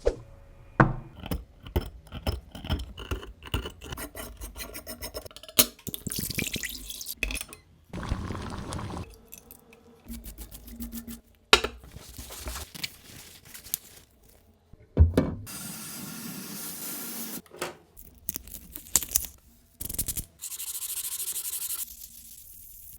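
Hand and power-tool work on a metal dagger. It opens with a quick run of sharp taps and clinks, then gives way to stretches of rubbing, filing and sanding that stop and start abruptly, and ends in a steady high hiss.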